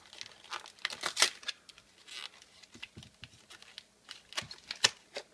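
Foil wrapper of a Pokémon trading-card booster pack crinkling and being torn open: a string of irregular sharp crackles, loudest about a second in and again near the end.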